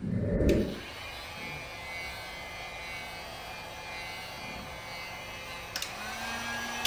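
A thump, then a handheld electric heat gun running steadily: an even blowing rush with a faint high whine from its fan. There is a short click near the end.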